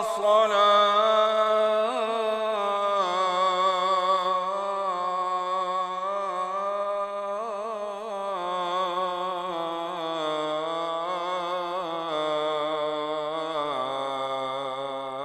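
A man's solo voice chanting the adhan, the Islamic call to prayer, drawing out one long ornamented melismatic phrase. The voice wavers constantly and sinks step by step to a lower pitch.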